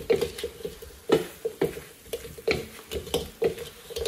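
Chicken wings being stirred and tossed in sauce in a pan: a cooking utensil knocking and scraping against the pan in repeated, uneven knocks, two or three a second.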